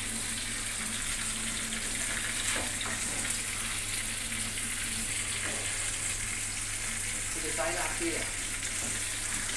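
Oil sizzling steadily in a frying pan on a gas stove, with a low steady hum underneath.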